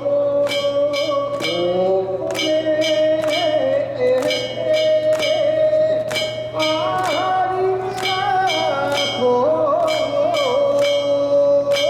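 Music: a singer holds long, wavering, ornamented notes over accompaniment with a steady percussive beat.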